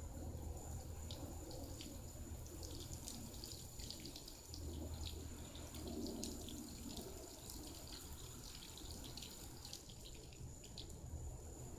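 Water from a car-wash hose and foaming brush spattering and dripping on a car, many small irregular splashes over a low rumble, with a steady high whine underneath.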